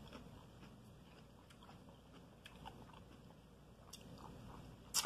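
Faint chewing and mouth sounds of a person eating coleslaw off a spoon, with scattered soft clicks and one sharper click near the end.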